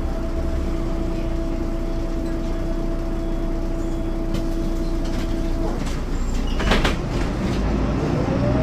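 MAN NL202 city bus with its D08 diesel engine rumbling under a steady whine, heard from inside. The whine stops suddenly a little over halfway through, and a brief clatter of knocks follows. Near the end a whine rising in pitch starts up.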